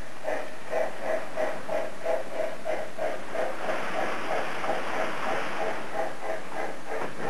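Model steam locomotive sound chuffing steadily, about three chuffs a second, as the locomotive hauls a long freight train around the model railway.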